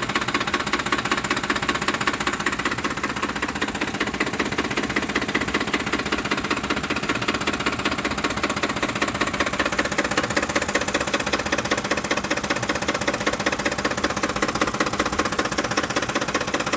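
2007 Ford F-150's 5.4-litre V8 idling roughly, with a fast, steady, even ticking knock over the running engine. The owner places the noise down near the fan, louder on one side.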